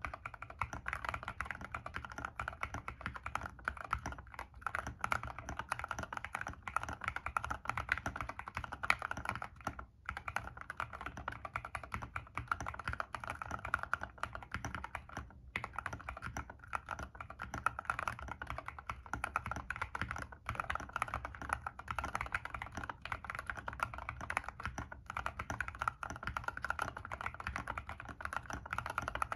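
Continuous fast typing on a mechanical keyboard with lubed Gateron Yellow KS3 linear switches and high-profile MA keycaps: a steady stream of keystrokes with a deep, muted thock rather than a click.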